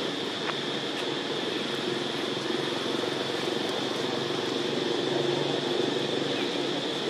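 Steady background drone with a constant high hiss, like distant engine noise, with no distinct events.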